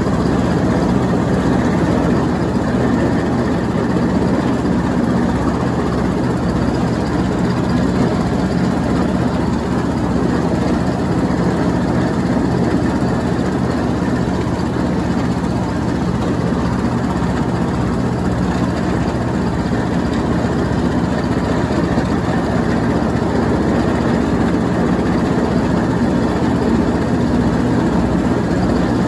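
Troy-Bilt Bronco riding lawn mower running steadily with its engine and cutting deck going while shredding light leaves; the engine note holds even throughout.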